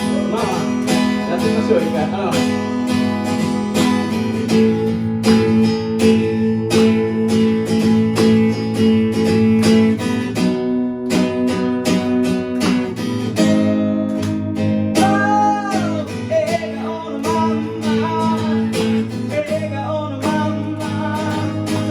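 Acoustic guitar strumming chords in a steady rhythm in a live song.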